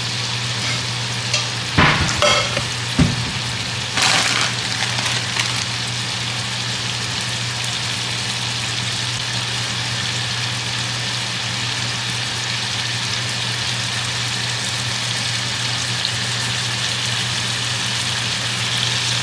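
Shrimp sizzling in sauce in a nonstick frying pan on an electric stove: a steady frying hiss, with a low hum under it. A few sharp knocks come about two to four seconds in.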